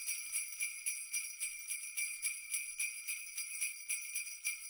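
Jingle bells shaken in a steady rhythm, about four shakes a second, with a bright ringing tinkle.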